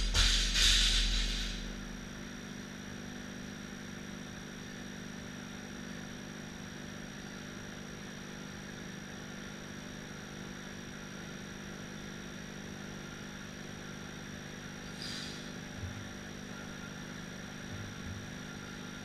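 A loaded barbell with bumper plates dropped onto rubber gym flooring bounces once more and settles with a deep rumble in the first two seconds. After that there is a steady background hum, with a brief faint hiss and a few soft thumps near the end.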